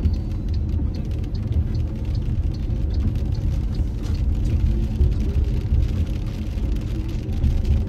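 A car driving in heavy rain: a steady low rumble of engine and tyres, with faint scattered ticks throughout.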